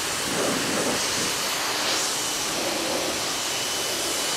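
Pressure washer spraying water in a steady hiss as the car is rinsed.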